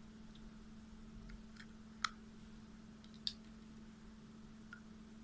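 Quiet room tone with a steady low hum and a few light clicks. The two sharpest clicks come about a second apart near the middle.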